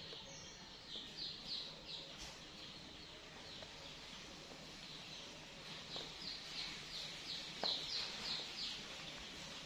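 High-pitched chirping calls from a small animal or bird, short chirps in quick runs of a few a second, one run about a second in and a longer one from about six seconds to near the end.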